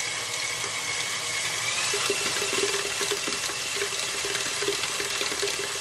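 KitchenAid Professional 6000 HD stand mixer running, its flat beater churning thick cake batter in the steel bowl: a steady motor whir with a whine that rises slightly about two seconds in, then an uneven knocking as the beater works through the batter.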